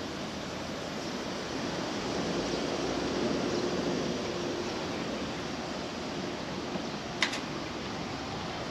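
Steady rushing background noise that swells a little a couple of seconds in, with one sharp click about seven seconds in.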